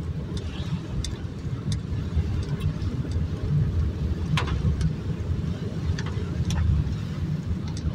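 Car cabin noise while driving on a wet road in rain: a steady low rumble of engine and tyres, with rain on the windshield and a few scattered light ticks.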